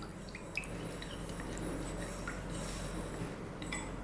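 Faint soft clicks and light taps of food-preparation handling over a low steady room hum.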